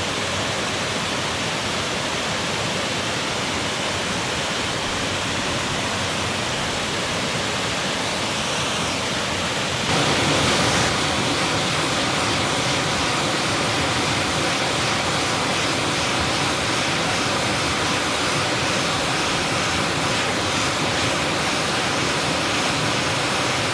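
Waterfall pouring onto rocks, a steady loud rush of water that grows a little louder about ten seconds in.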